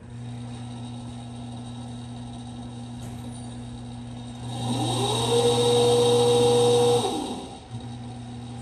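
Pandjiris welding positioner's electric table drive running with a steady hum. About halfway through, a motor whine rises in pitch, holds for about two seconds as the table turns, then winds down and stops, leaving the hum.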